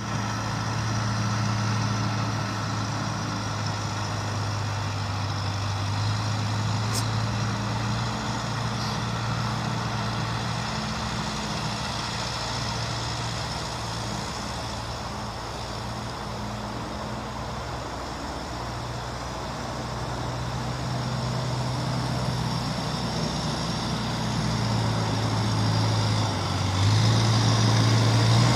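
Tractor engine running steadily with a low hum, rising and falling a little in level and getting louder near the end.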